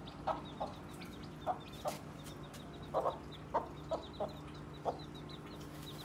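Mother hen clucking, about ten short clucks at irregular spacing, while her small chicks peep faintly and rapidly in a high pitch.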